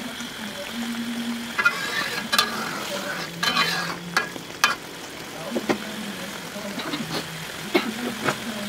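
Metal spatula scraping and clicking against a wok while stirring fried eggs in simmering chili sambal, which sizzles and bubbles throughout; a steady low hum runs underneath.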